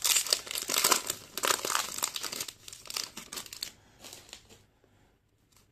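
Foil trading-card pack wrappers crinkling and tearing as they are ripped open and pulled off the cards by hand. The crackling is dense for about three and a half seconds, then fades to a few faint rustles and stops.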